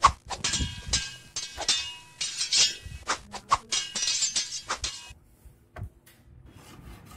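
A metal spoon clinking against jars and a steel wok as ingredients are spooned in: a rapid string of sharp clinks with a little ringing. It stops abruptly about five seconds in.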